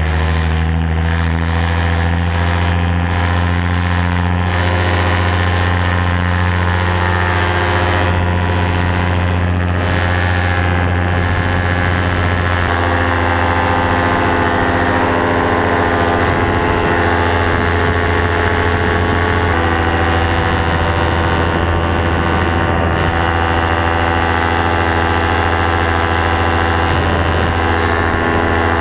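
Paramotor's two-stroke engine running steadily at high throttle through the takeoff run and climb, its pitch holding almost constant, with a slight shift about twelve seconds in.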